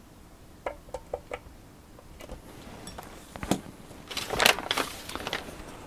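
Light clicks and taps of a small screwdriver working the screws of a graphics card's metal backplate, a few single ticks about a second apart. Later come knocks as the screwdriver is set down, and handling noise as the card is moved.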